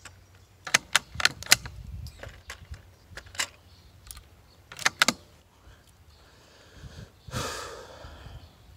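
Bolt of a Savage Mark II .22 rimfire rifle being worked by hand: a run of sharp metallic clicks and clacks as the spent case is extracted and a fresh round is fed from the single-shot loading tray, with a few more clicks a few seconds later. Near the end there is a short, louder rush of noise.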